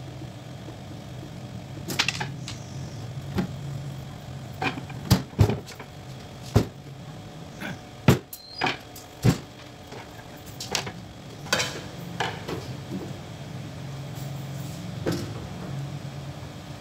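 Screwdriver work on the steel casing of a tabletop steam autoclave as its cover is opened up: irregular sharp metallic clicks and knocks, over a steady low hum.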